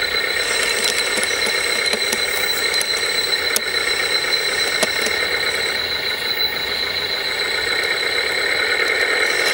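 A 1/14-scale radio-controlled construction model running, giving a steady high-pitched whine with a few faint clicks.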